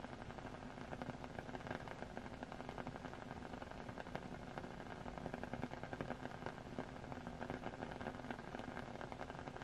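Steady rain: an even hiss dotted with many fine, quick ticks of drops.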